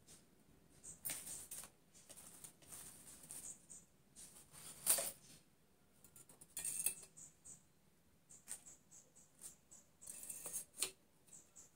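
Artificial flower stems and leaves rustling and scraping as they are handled and pushed into a vase, in faint irregular bursts, the loudest about five seconds in.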